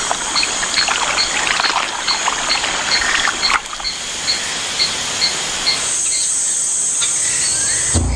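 Flooded rainforest ambience: water trickling and splashing with crackling clicks, over a steady high drone and a high pip repeating about two to three times a second. The pips stop and the drone grows louder about six seconds in.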